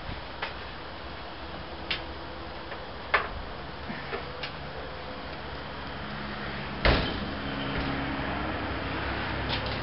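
Scattered light metallic clicks and knocks as a perforated steel strap is bent by hand around a steel muffler shell, with one louder knock about seven seconds in. A steady low hum comes up in the background in the second half.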